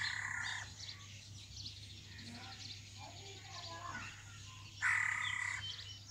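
Two loud, harsh bird calls, each under a second and about five seconds apart, over steady chirping of smaller birds.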